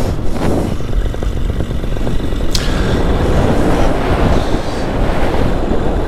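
Strong wind buffeting the microphone in flight through stormy, turbulent air, with a paramotor engine running underneath. A single sharp click about two and a half seconds in.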